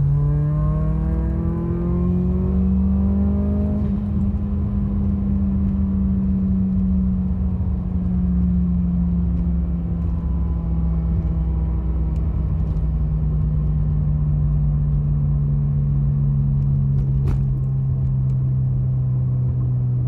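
Turbocharged car engine under way, its pitch climbing for the first few seconds as it accelerates, then easing slowly downward as it settles and slows, with a single click near the end.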